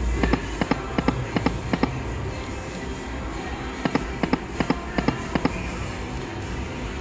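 Lock It Link 'Hold On To Your Hat' video slot machine spinning twice, each spin ending in a quick run of electronic reel-stop clicks as the reels land one after another. Steady casino background noise underneath.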